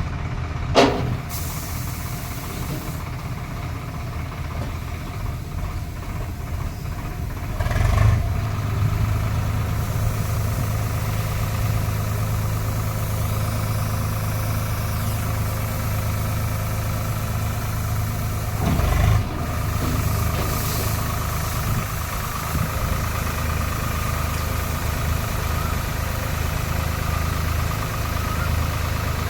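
Combine harvester engine running steadily, with a sharp knock about a second in and two brief surges in the drone.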